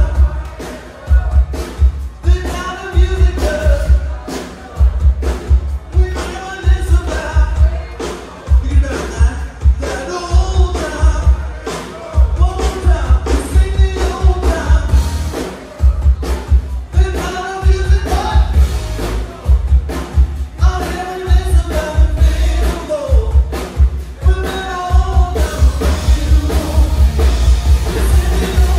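Live band music: a singer over loud bass and drums keeping a steady beat.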